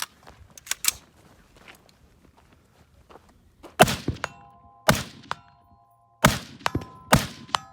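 Four gunshots about a second apart in the second half, with steel targets ringing on after the hits. A few light clicks and knocks come about a second in.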